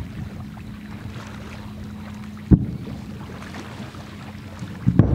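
Fireworks shells bursting: one sharp bang about halfway through and a couple more near the end, over a steady low hum and wind noise.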